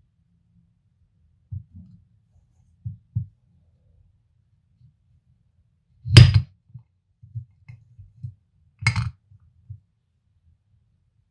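A kitchen knife cutting through a chocolate truffle on a plate: a sharp crack about six seconds in, another about three seconds later, and soft low taps and knocks of handling around them.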